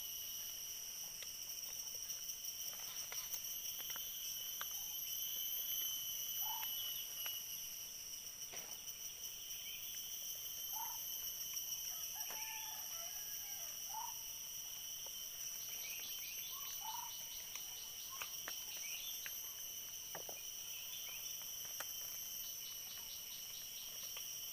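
Steady high-pitched drone of insects, with scattered short clicks and snaps of leaves and stems as java plums are plucked from a cut branch, and a few brief bird chirps.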